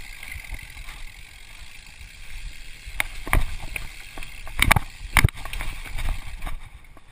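Mountain bike rolling fast down a rough dirt trail, heard from a chest-mounted camera: a steady rumble of tyres and air noise on the microphone. Sharp knocks and rattles come from the bike over bumps, several of them, the loudest a quick cluster a little past the middle.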